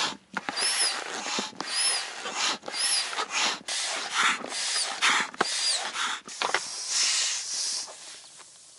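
Bellows foot pump being stepped on to inflate a PVC inflatable dinghy: about one stroke a second, each a rush of air, several with a short high squeak. Near the end the strokes give way to a softer hiss.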